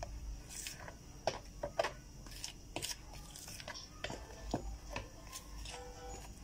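Metal spoon scraping and tapping against a plastic mixing bowl as flour is stirred gently into thick cake batter, in scattered soft clicks and scrapes.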